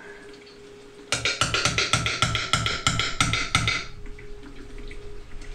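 A quick run of about a dozen metal-on-metal strikes, about four a second, each ringing, as the tractor's front axle hub is knocked loose during teardown. It starts about a second in and stops a little before four seconds.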